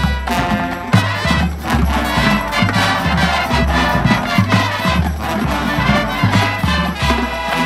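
Marching band playing outdoors: brass winds over a steady low bass line, with regular drum and cymbal strikes from the drumline.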